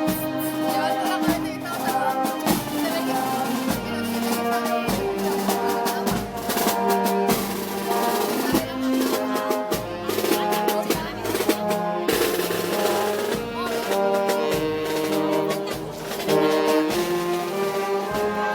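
Brass band with snare and bass drums playing a march: held brass notes over a steady, regular drum beat.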